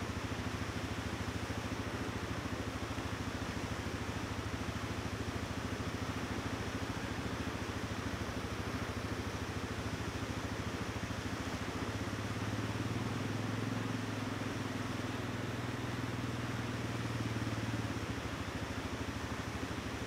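ATV engine idling steadily, its note swelling a little for several seconds past the middle.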